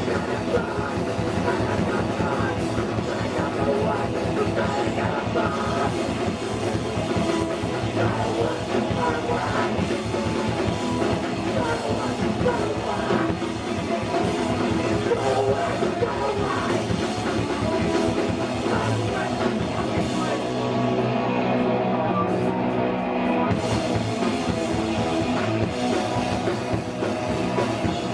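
Hardcore punk band playing live, loud and continuous: distorted guitars, bass and a drum kit. About twenty seconds in, the cymbals and high end drop away for about three seconds, leaving steady held low notes, before the full band comes back.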